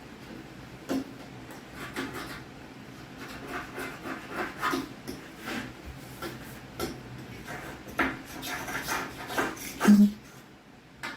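Stainless steel caulking tool scraping and pulling old caulk out of a joint in irregular short strokes, with one louder thump near the end.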